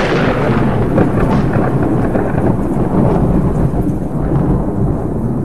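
Loud thunder: a crackling clap fades over the first few seconds into a long low rumble.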